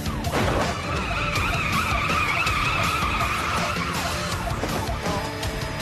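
Car tyres screeching in a long, slightly wavering squeal over engine and road noise, fading after about four seconds, with music underneath.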